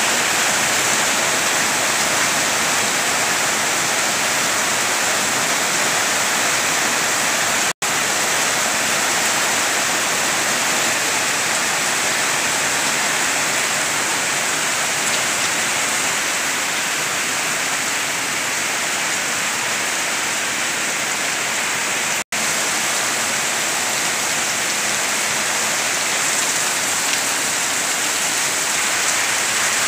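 Heavy tropical downpour: a loud, steady, dense hiss of rain falling, cutting out for an instant twice.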